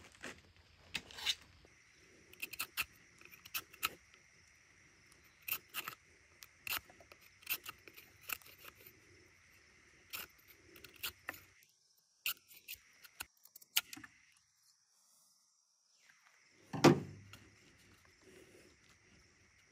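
Knife blade cutting and shaving a log as a wooden batoning mallet is carved: a scattered run of short, sharp clicks and scrapes of steel on wood. A single louder thump comes near the end.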